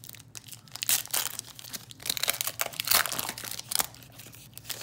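Shiny foil wrapper of a trading-card pack crinkling and tearing open in the hands, an irregular run of crackles and snaps.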